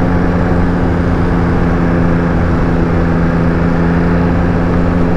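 Motorcycle engine running at a steady cruising speed, its pitch holding even, with wind rush on a helmet-mounted microphone.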